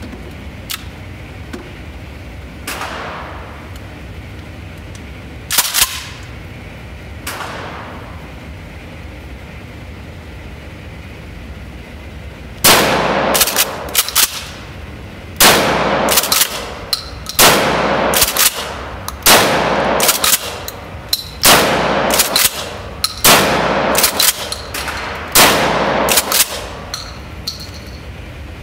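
KelTec KSG 12-gauge pump-action bullpup shotgun fired seven times about two seconds apart, each loud shot followed by the sharper clacks of the pump being racked, echoing in an indoor range. A few isolated bangs come earlier, before the string of shots starts about twelve seconds in.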